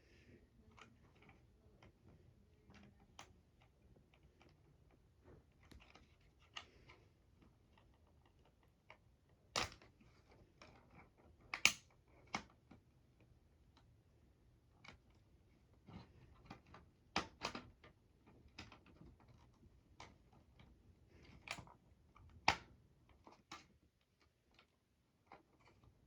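Irregular light clicks and knocks of plastic being handled: a smoke alarm and its battery canister being worked with the hands, with a few sharper snaps about 10, 12, 17 and 22 seconds in. No alarm sounds.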